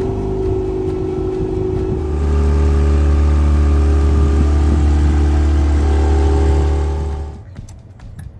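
Light aircraft piston engine running, growing louder about two seconds in as it is run up, then cutting off abruptly near the end.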